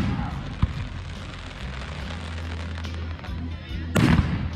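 Fireworks going off at a display: a loud bang at the start, a sharp pop about half a second in, and another loud boom about four seconds in, over a steady low hum of music.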